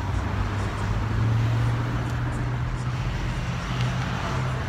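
Street traffic: a car engine runs close by with a steady low hum over road noise, a little louder about a second in.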